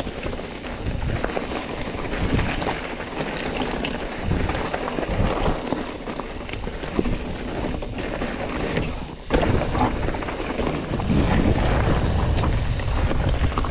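Mountain bike riding over a rocky dirt trail: tyres and frame rattling and clattering irregularly over the rocks, with wind rushing on the microphone. The sound drops out briefly about nine seconds in, then comes back louder.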